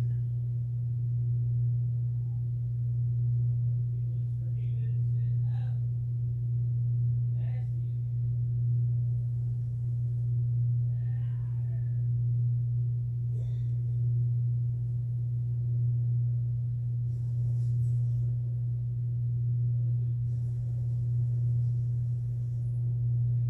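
A steady low electrical hum at one unchanging pitch, with a few faint small handling sounds over it.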